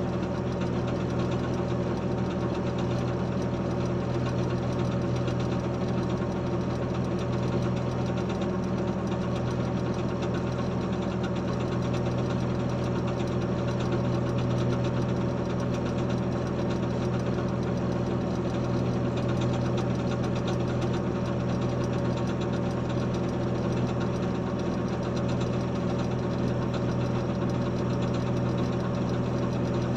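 Diesel engine of heavy road-construction equipment running steadily at constant speed, with no revving or change in load.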